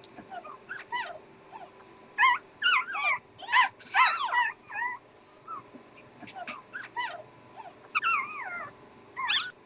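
Newborn puppies squeaking and whimpering: a string of short, high-pitched squeals that bend up and down in pitch, busiest in the middle and again near the end.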